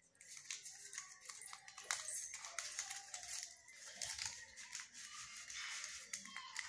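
Faint rustling and crinkling of origami paper as it is folded and creased by hand, in short scattered crackles.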